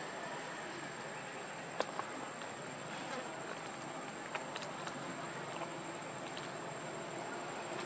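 Steady outdoor background hiss with a thin, high, steady insect whine, and a few faint clicks about two, three and four and a half seconds in.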